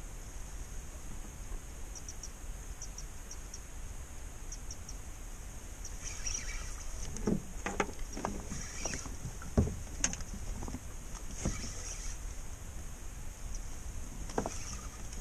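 Water lapping against the hull of a small fishing boat, with several sharp knocks on the boat in the middle and faint high ticking throughout.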